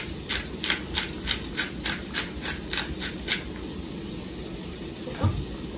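Disposable pepper grinder being twisted over a frying pan, giving a run of sharp ratcheting clicks about four a second that stops about three and a half seconds in. Vegetables sizzle faintly in the pan underneath.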